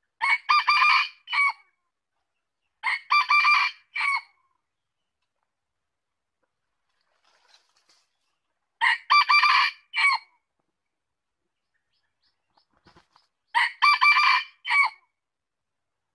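Red junglefowl rooster crowing four times, each crow about a second and a half long and broken into a few short syllables, with silent gaps between.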